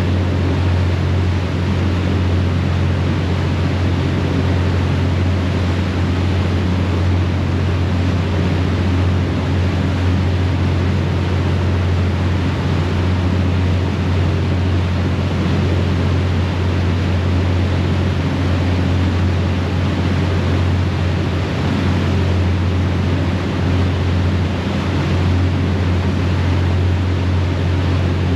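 A harbour ferry's engines run with a steady low drone, under the rushing noise of the churning propeller wake behind the stern.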